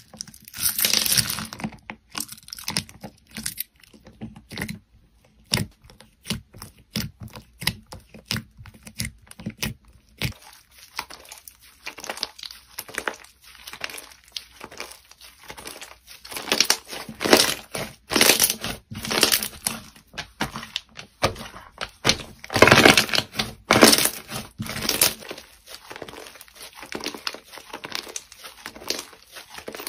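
Hands pressing, stretching and folding thick white slime mixed with small plastic block pieces, making a steady run of small crackles, clicks and squishes. Louder clusters of crackling come near the start and again in the second half.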